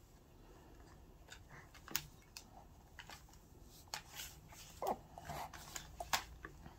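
Faint scattered clicks and light knocks of a plastic gaming headset and its braided cable being handled and knocked on a desk, with a short falling sound about five seconds in.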